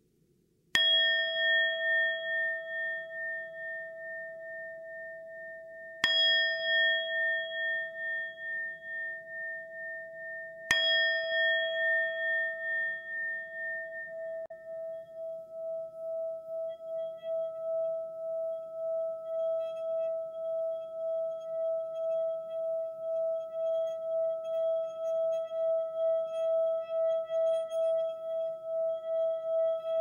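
A singing bowl struck three times, a few seconds apart, each stroke ringing out and slowly dying away. About halfway through it is kept sounding as a steady, pulsing tone that does not fade.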